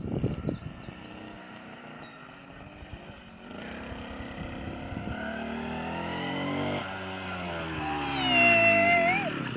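Small petrol scooter engine revving: it rises in pitch a few seconds in, then slides down. Near the end a loud, wavering high-pitched squeal comes in over it, dipping and then rising before it cuts off.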